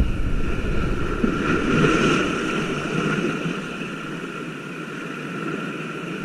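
Motorboat engine running steadily, with wind noise on the microphone that eases after about a second.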